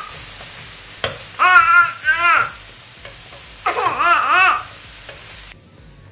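Turkey breast frying in a pan, with a steady sizzle that stops abruptly near the end. Over it come two drawn-out, high-pitched vocal cries that rise and fall, about a second and a half in and again about four seconds in.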